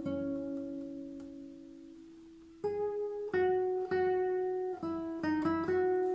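Acoustic guitar being fingerpicked: a chord rings out and slowly fades for about two and a half seconds, then a run of single plucked notes follows.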